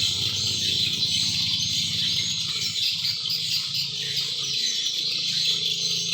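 Steady outdoor chorus of insects and birds chirping, with a low hum running underneath.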